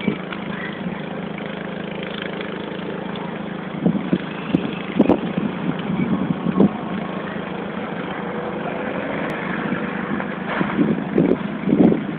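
Fire engine's diesel running steadily with a constant low hum, broken by several sudden louder noises about four, five and six and a half seconds in and again repeatedly near the end.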